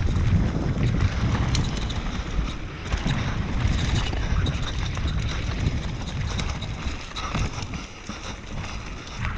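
Mountain bike rolling fast downhill over rocky grass: a steady rumble of tyres and wind buffeting the microphone, with many small knocks and rattles from the bike over bumps.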